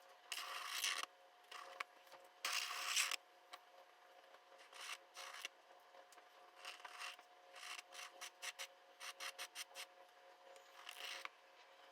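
Pen strokes scratching across paper while drawing. Two longer, louder strokes come in the first three seconds, then many short, quick strokes follow, over a faint steady hum.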